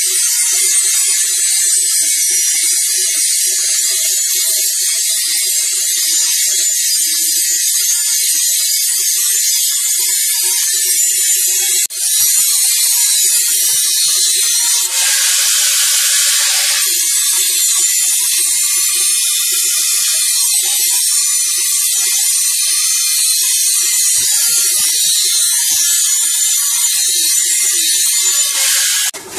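Angle grinder sharpening the steel knife blade on the flywheel of a chaff cutter: a loud, steady, high grinding hiss of the disc on metal. It dips briefly about twelve seconds in and turns harsher, with a low whine, for a couple of seconds shortly after the middle.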